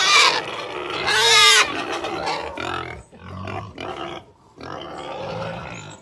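Pigs squealing loudly twice, then grunting repeatedly.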